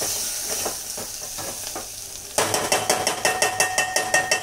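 Onions and spices sizzling in a pot as a steel ladle stirs them. About halfway in, the ladle starts scraping and knocking rapidly against the metal pot, about five ringing strokes a second.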